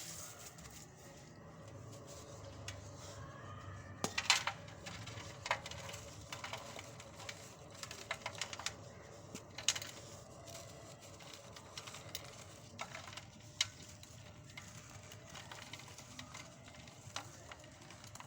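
Hardened pure cement being crumbled, with irregular crunchy cracks and clicks as the pieces break, the sharpest ones a little after four seconds and near ten seconds.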